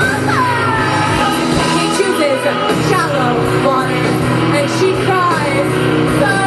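Live rock band playing with drums, bass, guitar and keyboard under a woman's singing voice, with repeated sliding pitch swoops above the mix.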